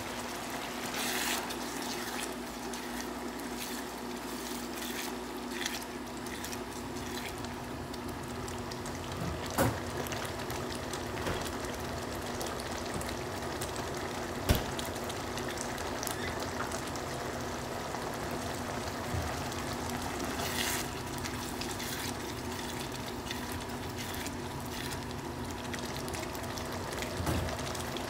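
Picadillo in tomato sauce simmering in a pan: steady bubbling, with a few sharp pops from bursting bubbles, the loudest a little under halfway through and about halfway through.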